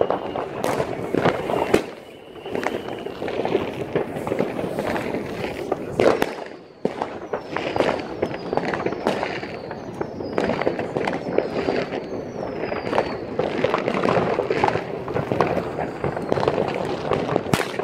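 New Year's Eve fireworks and firecrackers going off all over town: a dense, irregular stream of bangs and crackles over a constant rumble of further explosions. About halfway through comes a run of short falling whistles.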